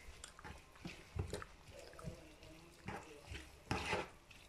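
Diced red and green peppers cooking in a frying pan, faint crackling and scattered pops from the little water still left in the filling. A few louder pops come near the end.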